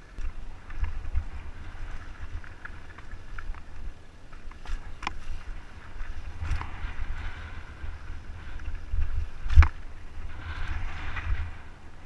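Wind buffeting a helmet-mounted camera's microphone as a mountain bike rolls over dirt and bare rock, with a few sharp knocks and rattles from the bike over bumps; the loudest knock comes about nine and a half seconds in.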